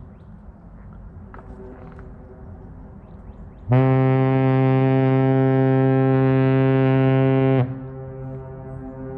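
A passing ship's foghorn blowing one long, deep, steady blast of about four seconds, starting a little under four seconds in, then dying away into its echo off the river.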